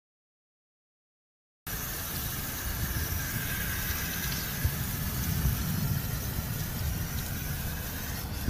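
Silent for about the first second and a half, then tap water running steadily and splashing over a carrot as it is rubbed clean by hand.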